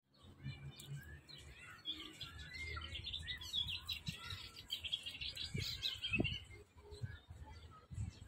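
Small birds chirping and twittering in a busy, overlapping chorus that is densest through the middle, over a low rumble with a few dull low thumps.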